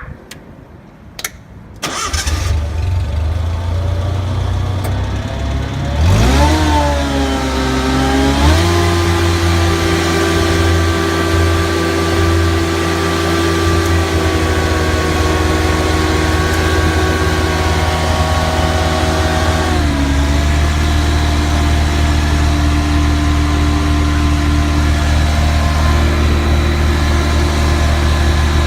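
Prochem Everest truckmount carpet-cleaning machine starting up. Its engine catches about two seconds in, revs up around six seconds in and settles into steady running, then drops to a slightly lower speed near twenty seconds in.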